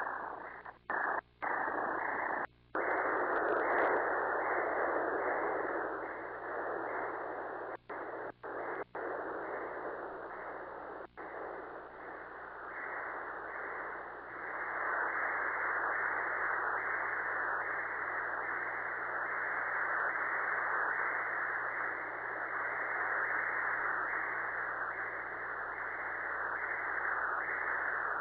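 Pulsed-wave Doppler ultrasound audio of arterial blood flow: a rhythmic whooshing pulse at about 72 beats a minute, an adult rate that points to a maternal vessel. The signal cuts out briefly a few times in the first seconds and again around eight and eleven seconds in, then beats steadily.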